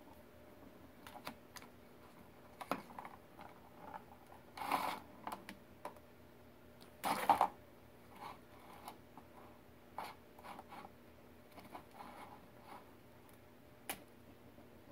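Kittens playing on a tile floor: scattered light clicks, taps and scratches from paws, claws and a round plastic ball-track toy, with two short louder scuffles about five and seven seconds in.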